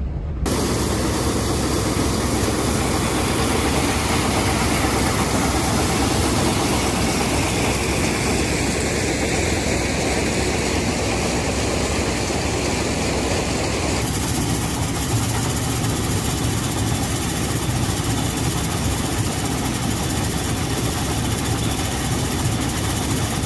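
Minneapolis Moline corn sheller running steadily while shelling ear corn, its augers pouring shelled kernels into a wagon: a loud, dense, even mechanical noise that changes character about 14 seconds in.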